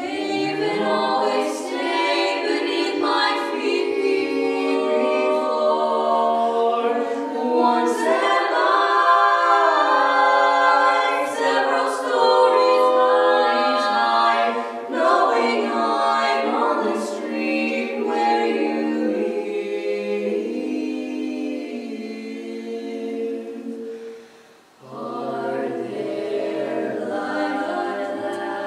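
A mixed vocal quartet of three women and a man singing a cappella, several held chords moving under one another. The voices break off for a brief pause near the end and then come back in.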